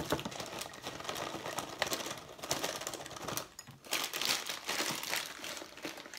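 Raisins pouring from a cardboard box into a glass jar, a dense patter of small clicks, with the box's plastic liner crinkling as it is shaken and handled. There is a short lull about halfway through.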